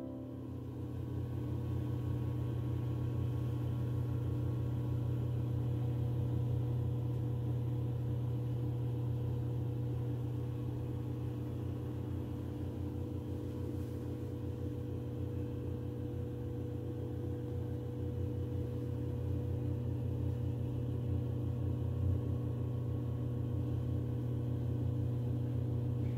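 Steady low machine hum with a few faint, steady higher tones.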